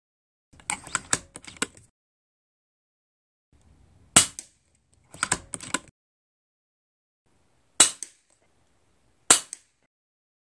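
Three sharp shots from a .177 Uragan Compact regulated PCP air rifle, the last two about a second and a half apart. Runs of quick mechanical clicking come before them, near the start and just after the first shot.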